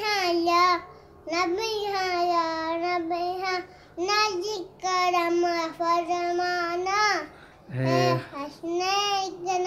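A young boy singing solo without accompaniment, in several long drawn-out phrases with a wavering pitch, pausing briefly for breath between them.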